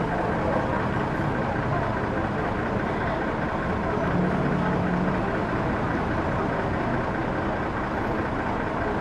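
Diesel engine of a stationary tour bus idling steadily, heard from just behind its rear engine compartment.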